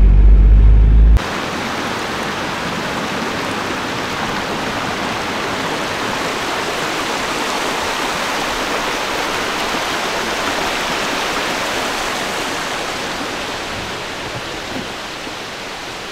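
Shallow stream running over rocks, a steady hiss of rushing water that begins abruptly about a second in and grows a little quieter near the end. Before it, a low drone of a van driving, heard from inside the cab.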